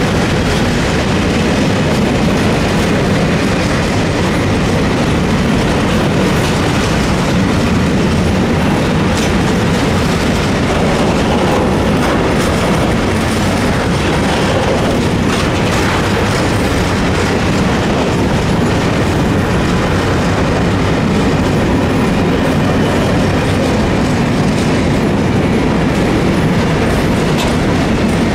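A train running on rails, its wheels clattering steadily over the rail joints with a continuous, even running noise.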